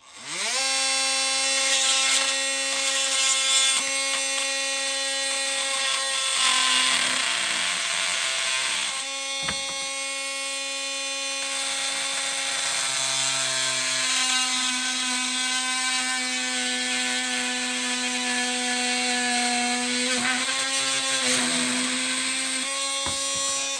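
BAUER 20V brushless oscillating multi-tool with a carbide-tooth blade, running at speed setting 3. It winds up at the start, runs with a steady high hum and stops near the end. About six seconds in, and again near the end, a rasping cutting noise comes in as the blade bites into material and the motor's pitch sags slightly under the load.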